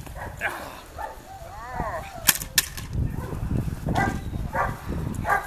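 Two sharp cracks about a third of a second apart, the loudest sounds here, over steady rumbling noise. A dog gives one short whine just before them.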